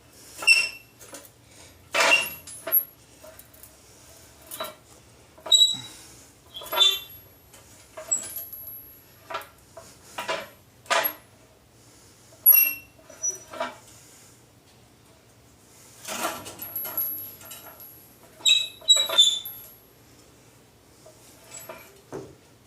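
Steel sheet-metal patch panel clanking and briefly ringing as it is worked through a manual tipping wheel, with irregular sharp metal knocks and squeaks.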